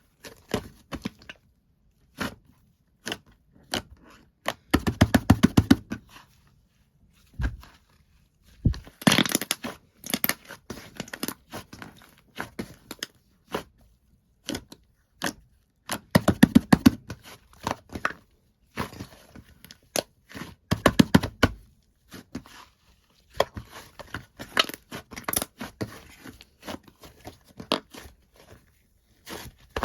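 White slime being squished and stretched by hand: a run of sticky clicks and pops, with four denser bursts of rapid popping as air pockets are pressed out.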